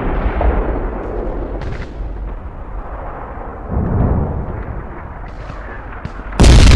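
Artillery fire in a battle sound track: heavy, deep booms that die away and swell again about four seconds in, then a sudden much louder blast near the end that keeps going.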